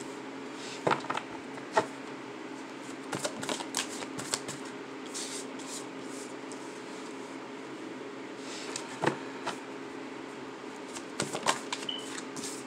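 A tarot deck being shuffled by hand, with cards laid down on a tabletop. The card noise comes in short bursts of riffling and snapping, about a second in, around three to four seconds, near nine seconds and again near the end, over a faint steady hum.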